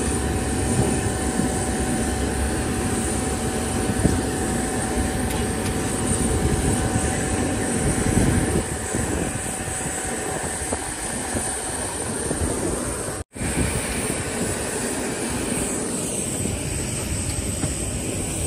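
Steady ramp noise from a parked Boeing 717-200 jet airliner: a constant rush with a faint steady whine that fades out about twelve seconds in. The sound drops out for an instant about thirteen seconds in.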